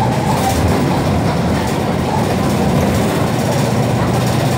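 Steady engine drone and road rumble heard from inside a moving city bus.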